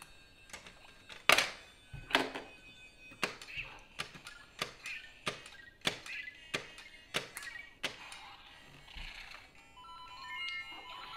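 Plastic LEGO bricks clicking and knocking on a table about twice a second as pieces are handled and snapped together, with faint electronic beeping tones and a short stepped run of beeps near the end.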